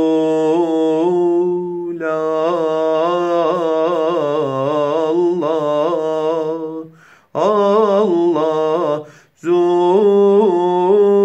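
A man singing a tevşih, a Turkish religious hymn, solo and unaccompanied in Çargâh makam. Long held notes with wavering ornaments, in phrases split by short breaths about seven and nine seconds in.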